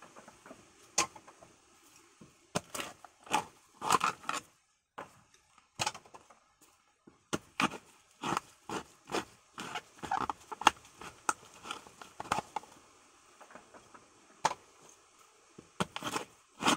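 Hands working the fibrous shell of a husked coconut: irregular clusters of scraping, snapping and tearing clicks, with a short break about five seconds in.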